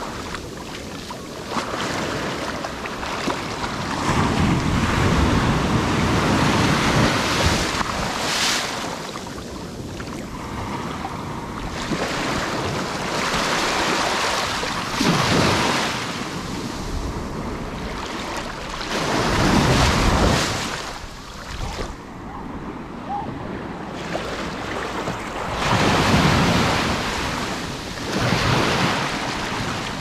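Atlantic Ocean surf washing up over the sand at the water's edge and draining back, the rushing swelling and fading every few seconds as each wave comes in.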